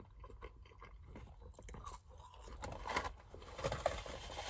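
Close-up chewing of Burger King fries: a run of small wet mouth clicks and smacks, loudest about three seconds in and again near four seconds.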